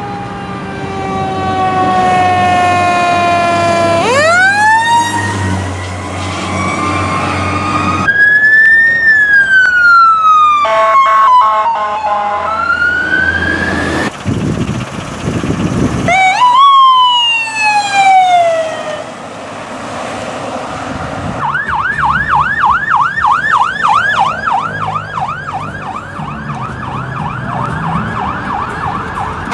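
Emergency vehicle sirens as several responding vehicles pass. A fire engine's siren falls in pitch and then winds sharply back up, with engine rumble under it. Later sirens rise and fall in slow wails, then switch to a fast yelp of about three sweeps a second near the end.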